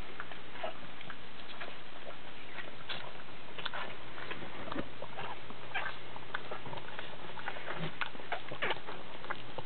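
Pug mother licking her newborn pug puppies as they nurse: short, irregular smacking clicks, several a second.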